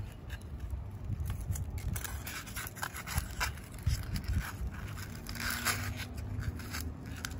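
Hands working through the dry, dehydrated roots of a desert rose (adenium) and pressing polystyrene foam pieces between them: irregular scraping and crackling, busiest in the middle of the stretch.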